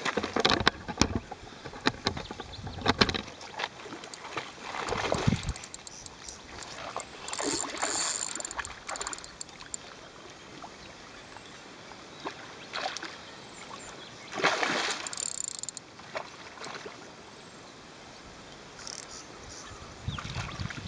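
A carp thrashing and splashing at the water's surface, several separate bouts of splashing with quieter lapping water between them.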